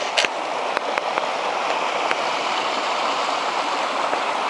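Steady rush of water from a rain-swollen waterfall, with a couple of sharp clicks right at the start.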